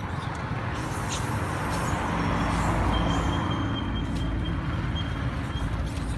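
A motor vehicle's engine running, a steady low hum that grows a little louder toward the middle and then eases. A thin, steady high tone joins about halfway through.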